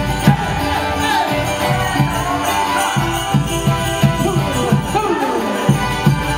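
Live Andean folk-fusion band playing: a steady drum beat about two strokes a second under sliding melodic lines, with bright jingling bells throughout.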